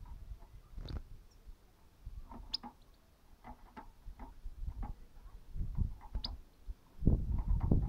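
Irregular light taps, clicks and scratches from a caged European goldfinch moving about, with a few brief high chirps rather than song. Louder rumbling knocks come in near the end.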